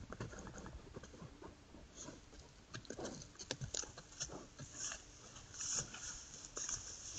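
Wild boar moving over dry ground and through drought-dry grass: irregular crackling and rustling steps, thickening as it pushes into the vegetation.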